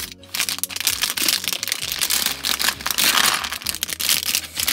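A thin plastic parts bag crinkling as it is slit open with a utility knife and emptied, with small plastic LEGO bricks and plates clattering out onto the table. Dense crackling with many sharp clicks throughout, busiest about three seconds in.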